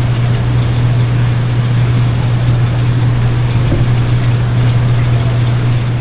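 A machine running with a steady low drone, unchanging throughout.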